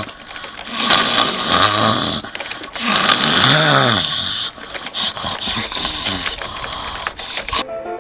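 Dogs growling in rough, drawn-out growls that rise and fall in pitch.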